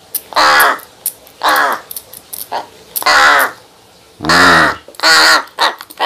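A young crow giving loud, harsh caws, about six in a row, each around half a second long. These are the begging calls of a fledgling that cannot yet feed itself, made while it is given water from a spray bottle.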